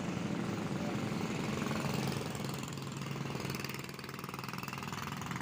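A small engine running steadily at a low, even hum, with the noise of street traffic around it.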